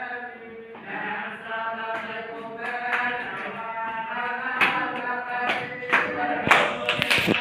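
A group of voices chanting together in long held notes. A few sharp taps sound over it in the second half.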